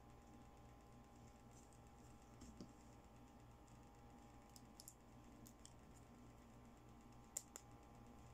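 Faint clicks and taps of small plastic toy hair accessories being handled and set down on a table, a few scattered light clicks with the sharpest pair near the end, over a low steady hum.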